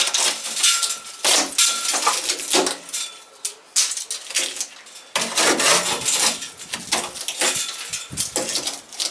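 Metal car parts and hand tools clanking, knocking and scraping while an old car is being dismantled, with a quieter stretch a few seconds in.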